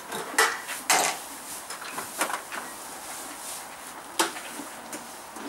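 A few clicks and knocks from a metal Böckmann tack locker being handled, its latch worked and its doors opened, with a sharper knock about four seconds in.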